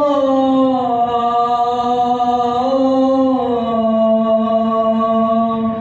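A male muezzin chanting the adhan, the Islamic call to prayer: one long melismatic phrase held out and stepping slowly down in pitch, ending just before the end.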